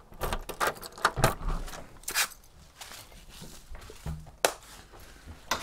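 Footsteps and small scuffing knocks of a person walking through a doorway, irregular in rhythm, with one sharp click late on.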